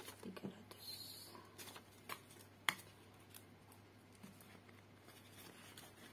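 Faint rustling and light taps of paper banknotes being counted and handled, with one sharp click a little under three seconds in. The notes are then slipped into the plastic zip pouch of a ring binder.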